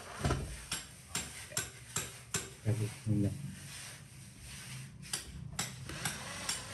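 Cordless drill driving a screw into an aluminium ceiling trim strip: a string of sharp clicks, about two a second, with two short low buzzes about three seconds in.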